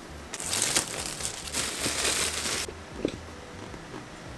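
Plastic shrink-wrap being torn off a boxed pair of headphones and crinkled, a dense rustling that stops abruptly after a little over two seconds, followed by a faint knock.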